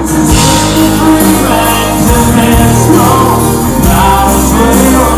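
Live country band playing loudly with a singer, heard through a phone camera's microphone.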